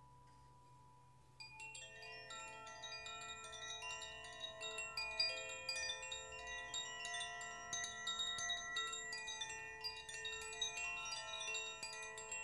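Metal wind chimes set ringing by hand: after a faint first second and a half, a dense shower of overlapping bright, ringing chime tones starts and keeps going.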